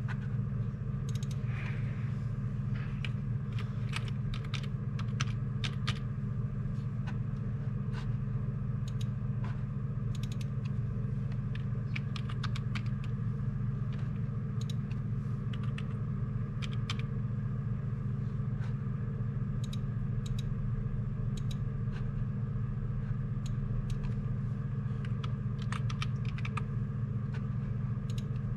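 Keys clicking on a computer keyboard in irregular short runs as text is typed in, over a steady low machine hum.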